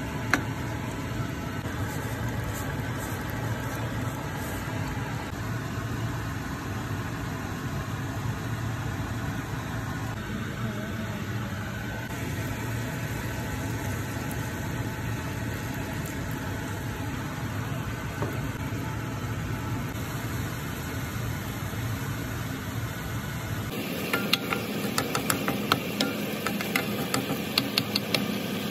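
Prawns simmering in a frying pan under a steady low hum. About 24 seconds in it changes to sizzling, with quick clicks and scrapes of a wooden spatula stirring in the pan.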